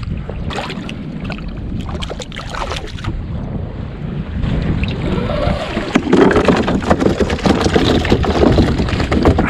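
Wind buffeting the microphone and sea water slapping against a plastic fishing kayak, with scattered knocks and rattles as a freshly caught trevally is handled and lies on the kayak's deck; the knocking grows louder and busier in the second half.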